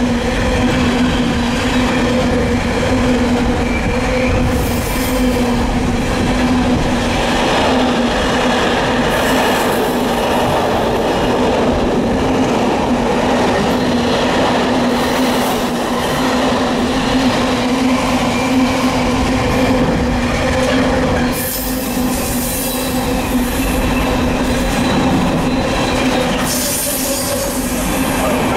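Container wagons of an intermodal freight train rolling past close by: a steady low drone under the clatter and rumble of wheels on rail, with harsher high hissing several times as the wagons go by.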